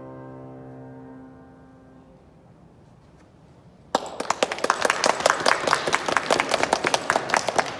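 The last chord of a grand piano dies away, followed by a couple of seconds of quiet. About four seconds in, an audience breaks into applause.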